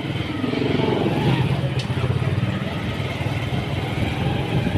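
Small motorcycle engine running as the bike is ridden slowly, heard from the rider's seat, its exhaust putting out rapid even pulses that grow a little louder about a second in.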